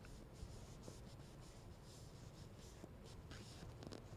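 Near silence with faint rustling and a few soft clicks from a hand moving about the phone as it films.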